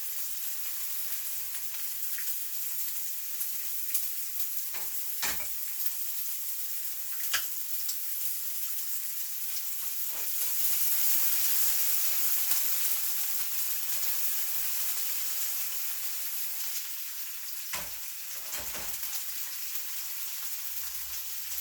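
Stir-fry meat and vegetables sizzling in a hot pan, a steady hiss that grows louder about halfway through, with a few short knocks.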